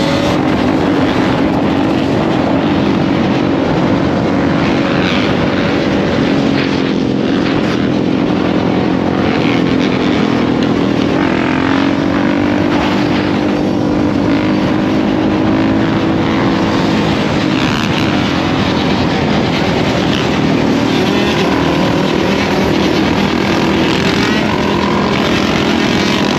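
A pack of dirt bikes and ATVs riding together: several engines run and rev at once, their pitch rising and falling. The sound is heard close up from aboard one of the quads.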